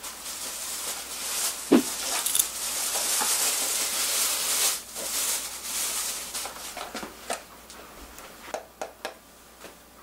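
Handling noises: a few seconds of rustling with sharp clicks and a knock, then scattered light taps and clicks.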